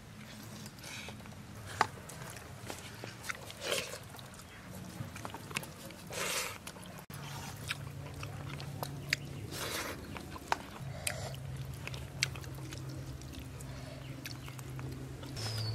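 People eating rice and curry with their hands: chewing and mouth smacks, with scattered small clicks of fingers mixing rice on a steel plate. A low steady hum runs underneath.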